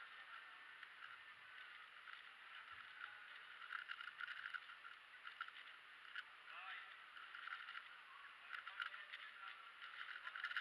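MoFangGe QiYi WuQue stickerless 4x4 speed cube being turned fast in a solve: quick runs of plastic clicks and clacks in bursts with short pauses between them, over faint background chatter.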